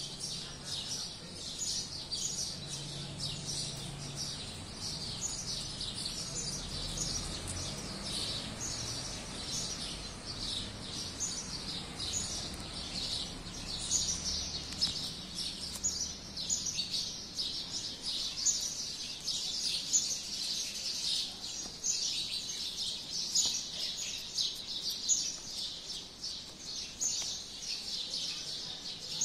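Birds chirping over and over in short, high chirps that repeat several times a second without a break.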